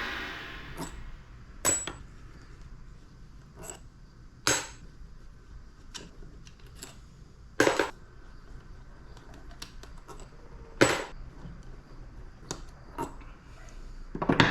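Metal parts and tools of a pressure washer motor being handled during teardown: a few sharp clinks and knocks spaced a few seconds apart, with faint ticks between them. A ringing note from a struck part fades away at the start.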